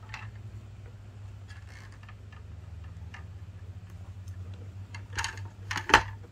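Light plastic clicks and taps from handling a plastic LED tube lamp and its cardboard box, with a few louder knocks about five to six seconds in, the sharpest near the end. A steady low hum runs underneath.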